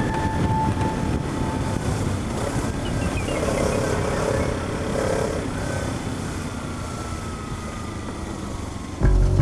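Kawasaki Z300 parallel-twin engine running under way, mixed with wind and road noise. Music comes back in suddenly near the end.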